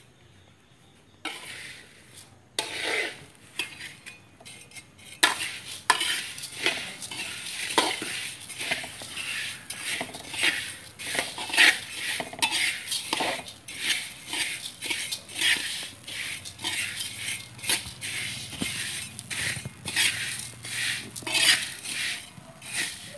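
Metal spatula scraping the wok and stirring dry young glutinous rice grains as they toast, in quick repeated strokes that begin about two seconds in.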